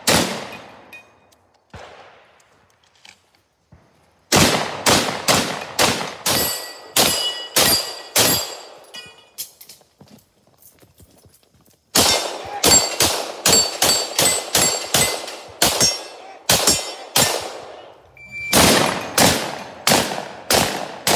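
Gunshots fired in rapid strings, with steel targets ringing after some of the hits: a single shot at the start, a quick string of about a dozen shots a few seconds in, a pause of about three seconds, then two more fast strings to the end.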